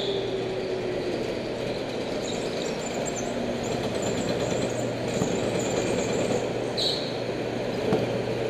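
Indoor rental go-kart's motor running steadily as the kart rolls slowly over the concrete floor, with a brief high squeal at the start and another about seven seconds in.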